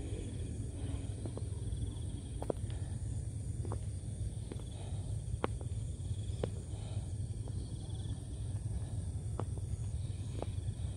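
Open-air field ambience: a steady low rumble, a faint steady high insect buzz, and a dozen or so scattered sharp clicks.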